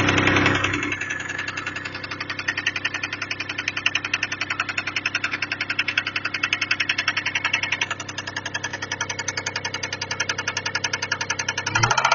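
Toyota 1MZ-FE V6 engine running with a rapid, even knocking, louder for about the first second. The owner cannot tell whether the knock is a worn bearing shell or the valves.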